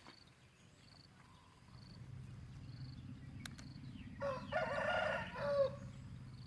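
A rooster crowing once, about four seconds in, a single call of about a second and a half that falls away at the end.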